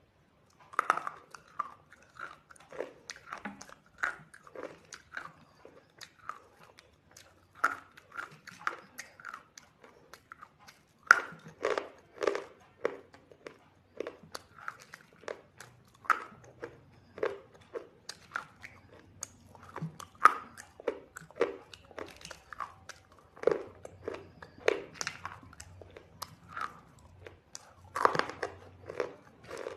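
A person biting and chewing something crunchy close to the microphone: an irregular run of sharp crunches, about one or two a second.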